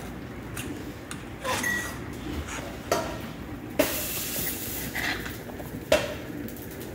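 A baby's hands slapping a hardwood floor as she crawls, with three sharp knocks spread over a few seconds and a short hiss after the second.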